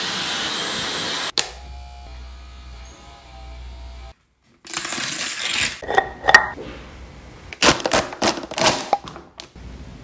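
A hair dryer blowing, cut off suddenly about a second and a half in. Later, a run of sharp clicks and knocks as a cosmetics jar is handled and its lid opened.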